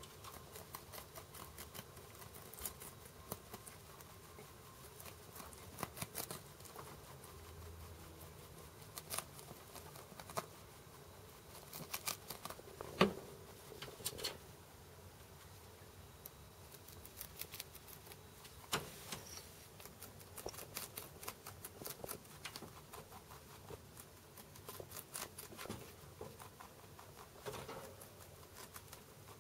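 Holland Lop rabbit chewing cabbage leaves: rapid runs of small crisp crunching clicks with brief pauses between mouthfuls. The loudest crunch comes about halfway through.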